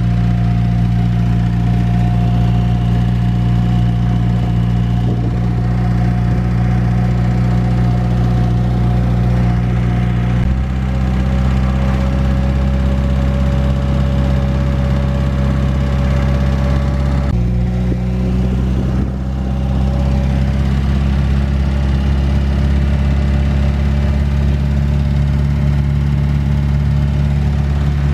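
Trotro minibus engine and road noise from inside the cabin while driving at a steady speed. The drone shifts in pitch abruptly twice, about ten and seventeen seconds in.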